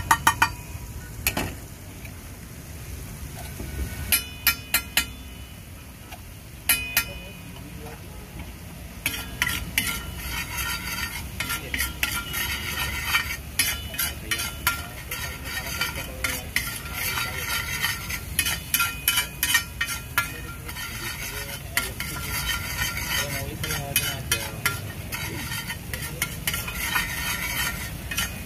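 Metal spatula striking and scraping on a large flat griddle (tawa), chopping and mixing a frying egg mixture that sizzles underneath. A few short bursts of strikes come in the first seconds, then from about 9 s in the clatter turns fast and continuous.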